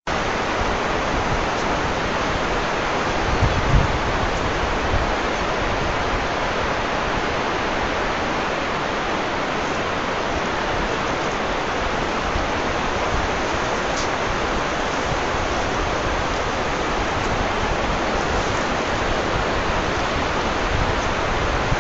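Steady rushing of running water, even and unbroken, with a few low thumps about three to five seconds in.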